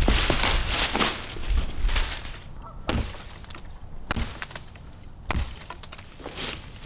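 Dead wood being broken up: a busy run of cracking and crunching, then single sharp cracks about a second apart.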